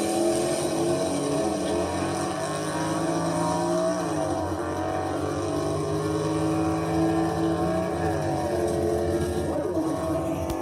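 Car engine running hard under load, its pitch dipping and then climbing again twice, about four and eight seconds in.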